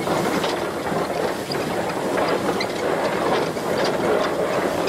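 1915 Baldwin 0-6-2T steam locomotive rolling along the rails, heard from on board: a steady running rumble with irregular clanks and rattles from the wheels on the track.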